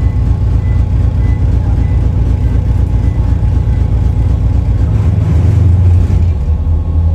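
Low, steady rumble of a vehicle's engine and road noise, heard from inside a moving vehicle. About five seconds in it settles into a steadier, deeper hum.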